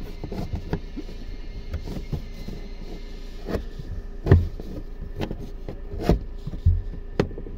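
Scattered clicks and knocks of plastic dashboard trim and its clips being pried and pushed at by hand and with a thin tool, the loudest a knock about four seconds in, over a steady low hum.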